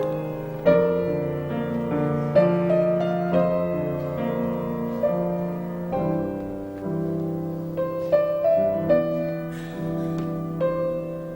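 Slow, quiet-paced piano music: chords struck every second or so, each ringing on and fading.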